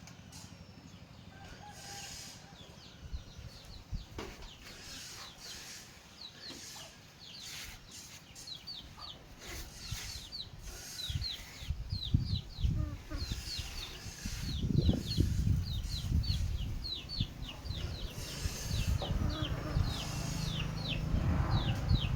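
Chickens: a rapid series of short, high, falling peeps, like chicks calling, several a second from a few seconds in. Low rumbling and thumping noise joins them in the second half.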